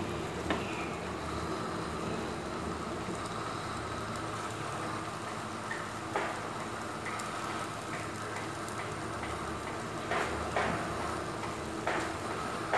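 Chicken and vegetables in a roasting pan simmering over a gas burner: a steady bubbling hiss with a few sharp pops.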